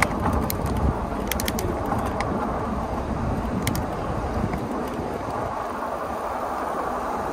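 Steady wind noise on the microphone and tyre noise from a moving e-bike, with a handful of sharp clicks in the first four seconds. The deep wind buffeting eases after about four and a half seconds.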